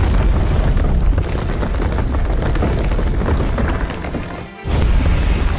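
Background music with deep rumbling booms from battle sound effects. About four and a half seconds in, the sound briefly drops away, then comes back with a sudden loud hit.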